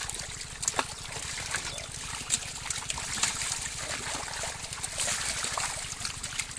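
Water splashing and trickling in a seine net crowded with live fish, with short sharp splashes here and there as the fish thrash and are scooped out with a plastic basket.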